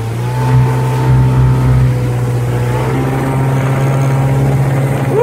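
Engine of a 1981 Polsport Chojnice 'Kasia' motorboat running steadily under way, a constant drone whose note drops slightly about three seconds in.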